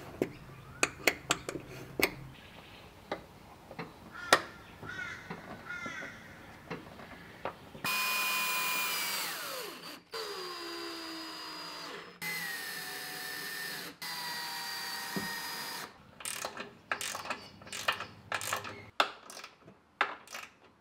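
A Ryobi cordless drill runs in four bursts of about two seconds each, its whine dropping in pitch as it drives fasteners to mount rock lights under the vehicle. Before and after the bursts come scattered clicks and rattles of hands fitting the light pods and fittings.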